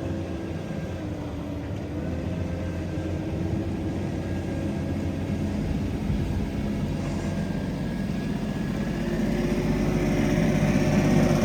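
An engine running steadily, growing louder about nine seconds in as it draws nearer.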